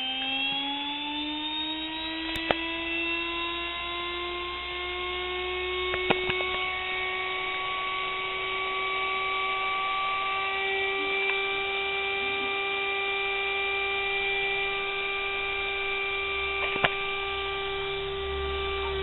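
Brushed mixer motor running on about 112 V rectified DC. Its whine rises in pitch as it spins up over the first several seconds, then holds steady and high. A few sharp clicks come through.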